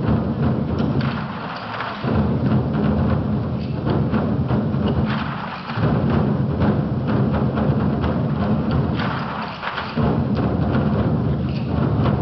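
A 24 Festive Drums ensemble beating large Chinese barrel drums together in dense, rapid rolls, loud and booming. The beating eases briefly and comes back hard about 2, 6 and 10 seconds in.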